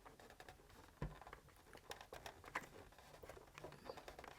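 Near silence with faint scattered clicks and light handling noises, and one soft knock about a second in.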